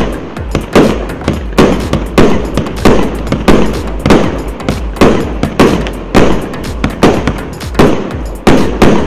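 1.25-inch multi-shot fireworks cake firing shells in steady succession, a sharp bang about every two-thirds of a second, each followed by the burst of the shell overhead.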